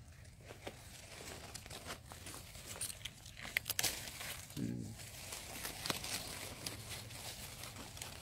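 Clear plastic grafting tape crinkling and crackling as it is pulled off the roll and wound tight around a grafted durian sapling's stem. There are scattered small crackles, with a few sharper ones about halfway through.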